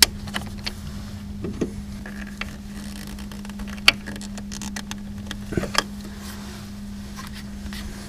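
Scattered light clicks and taps of an aluminum bracket and its screw being fitted onto a plastic brake fluid reservoir, the sharpest about four seconds in, over a steady low hum.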